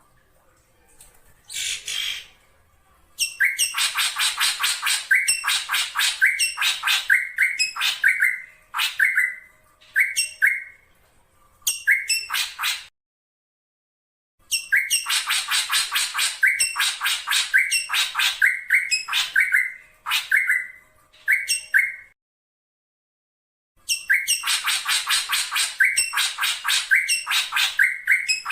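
Black drongo calling: fast runs of harsh, chattering notes, each ending in short notes that drop in pitch, coming in three long bouts with two short breaks. The uploader presents it as a female calling for a male.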